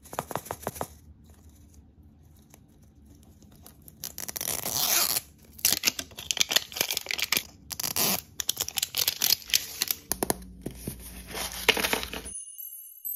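Clear plastic shrink wrap being peeled and torn off a toy ball, crackling and crinkling in bursts, then a paper wrapper being folded open. Near the end it cuts to a short chiming jingle.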